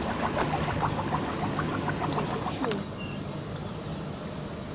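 A boat's engine running with a steady low hum, with water splashing and hissing along the hull. A little under three seconds in, the splashing drops away, leaving a quieter hum.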